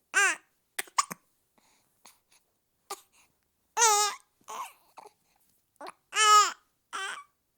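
Seven-week-old baby girl with the hiccups: short hiccups between three brief, high-pitched baby cries a couple of seconds apart.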